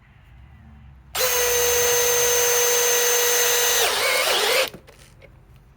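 Cordless compact hammer drill in screw mode driving a #14 x 3/4 sheet metal screw into steel about an eighth of an inch thick. A steady high motor whine runs for about three and a half seconds, then the pitch dips and wavers as the screw seats, and it stops suddenly. The drill drives the screw without much hesitation.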